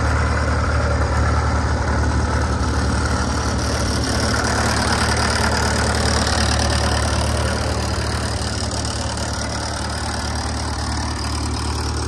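Fordson Super Major tractor's four-cylinder diesel engine idling steadily.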